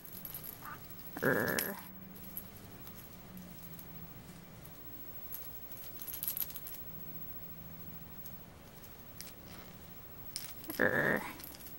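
A small bell inside a toy ball jingling faintly as a green-cheeked conure plays with it. Two short harsh calls from the conure stand out, about a second in and again near the end.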